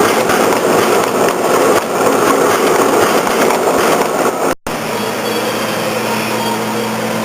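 Shaped-seal bag-making machine running with a dense, continuous mechanical clatter. The sound cuts out for an instant about four and a half seconds in, then resumes as a steadier machine hum with a low steady tone.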